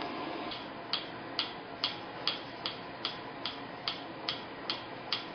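Gas stove's electric spark igniter clicking steadily, about two and a half clicks a second, over a low steady hiss.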